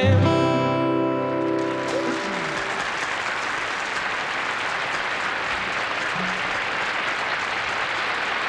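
A final held sung note and acoustic guitar chord ring out for about two seconds, then a concert audience applauds steadily.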